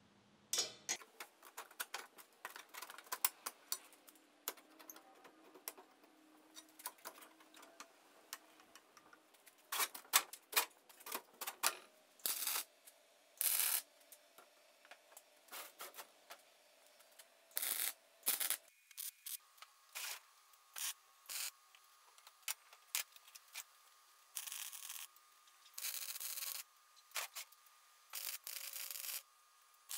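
MIG welder tacking steel stretcher bars to the stand's square-tube legs: repeated short bursts of crackling arc, each lasting about a second or less, with clicks and knocks of steel and clamps in between.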